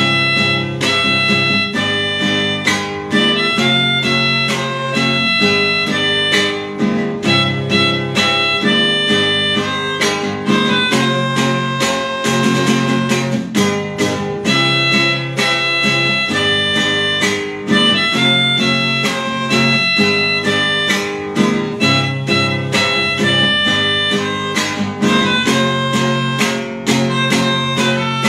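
Instrumental duet: an acoustic guitar strummed in a steady rhythm under a melodica playing the melody in reedy held notes.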